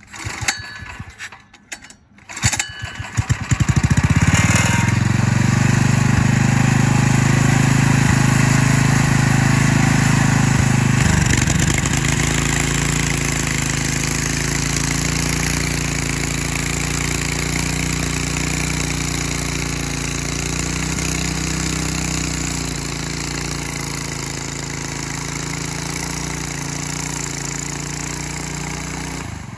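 A homemade drift cart's small gasoline engine starts about two and a half seconds in, after a few short knocks, then runs steadily. Its pitch and level drop a little about eleven seconds in.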